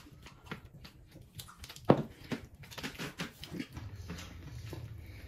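Eating sounds of men eating chicken curry and rice by hand: chewing and small wet mouth clicks, with one sharper short sound about two seconds in.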